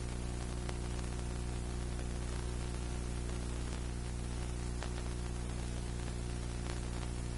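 Steady hiss with a low electrical hum beneath it and a few faint ticks: the background noise of an old videotape transfer.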